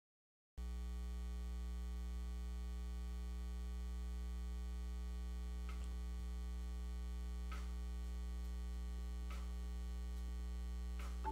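Steady low electrical hum, like mains hum on an audio line, cutting in abruptly after about half a second of dead silence. Faint ticks come about every two seconds from around six seconds in.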